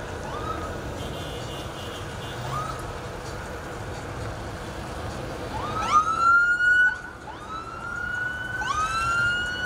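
Police car sirens giving short whoops: rising sweeps that climb and level off, two brief ones at first, then several louder overlapping ones from about six seconds in. Underneath runs steady traffic noise from many running vehicles.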